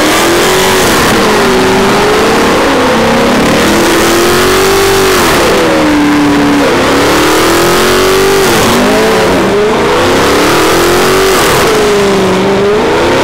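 Chevrolet Camaro engine revving hard at high rpm, rising and falling again and again, while its rear tyres spin and screech through a burnout and donuts.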